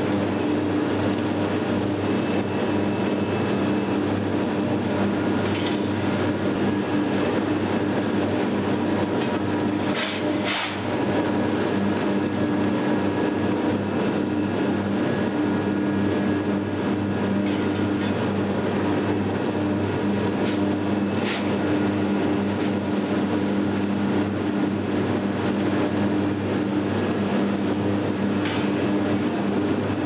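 Steady loud industrial hum of a steel mill's ladle furnace area, with a few brief clanks or scrapes about ten seconds in and again around twenty seconds.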